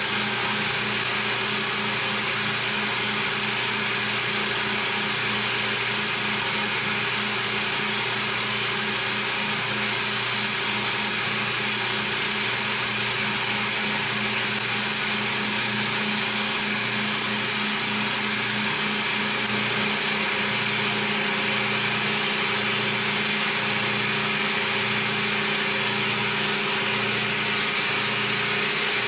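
CNC milling machine running a cut: steady spindle and cutting noise with constant tones. From about halfway through, a regular low pulse about once a second joins it.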